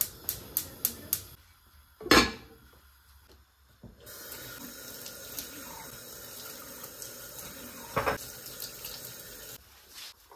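A tap running water into a sink for about five and a half seconds, starting about four seconds in, with a clink of a dish near the end. Before it come several light clicks and one sharp knock.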